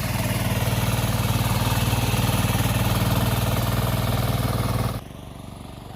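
Kuliglig two-wheel hand tractor's engine running steadily as it works the field. It cuts off suddenly about five seconds in.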